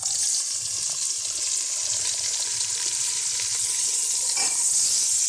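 Chopped sem beans hitting hot oil and cumin in a pressure cooker: a loud sizzle starts at once and goes on as a steady frying hiss while the beans are stirred.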